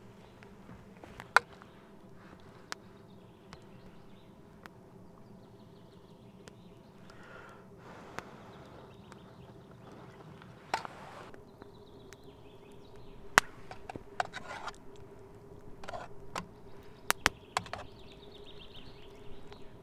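Wood campfire crackling, with sharp single pops at irregular intervals, a few close together near the end. Faint bird calls chirp in the background now and then.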